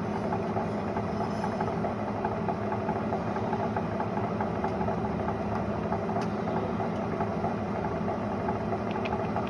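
Clausing 20-inch variable-speed drill press running, its motor and spindle giving a steady, even hum.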